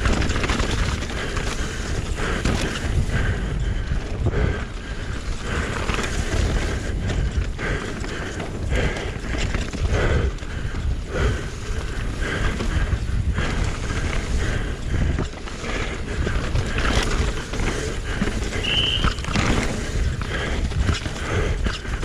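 Mountain bike ridden fast down a rough dirt trail, heard from a camera on the bike or rider: a constant clatter of the bike rattling over bumps, mixed with the noise of the tyres on the ground.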